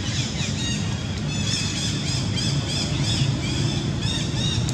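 A run of short high chirping animal calls, about three a second, starting about a second and a half in, over a steady low rumble.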